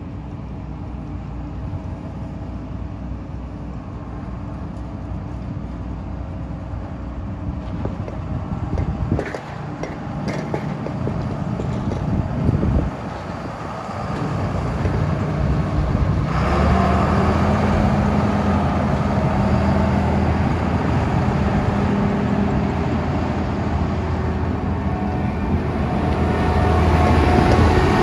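John Deere 9600 combine's diesel engine running steadily as the machine drives across gravel. It gets louder about halfway through and is loudest near the end as the combine comes close.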